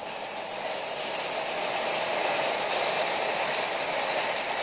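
Stage curtains being drawn open, a theatre sound effect: a steady rushing hiss that builds slightly at first and then holds even.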